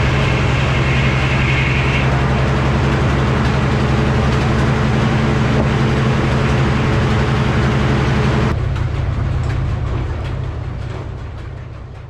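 Vintage Frick sawmill running: a steady engine drone under a loud hiss of the saw. The hiss drops away about eight and a half seconds in, and the drone then fades out.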